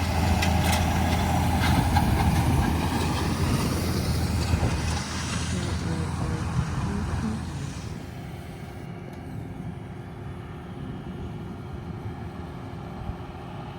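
Tractor engine running steadily while drilling, a low even hum that drops in level about eight seconds in.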